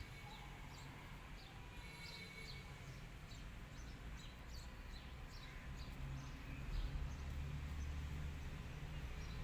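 Small birds chirping over and over in short high notes, over a low rumble that grows louder about two-thirds of the way through.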